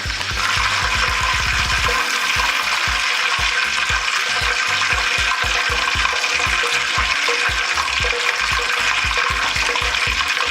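Quail pieces deep-frying in hot oil: a steady, dense sizzle that grows a little louder about half a second in. A regular low beat of background music runs beneath it.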